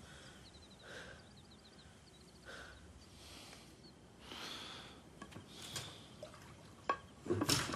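Slow, heavy breaths and sighs, a few seconds apart, with faint high chirps in the first few seconds and a louder breathy burst near the end.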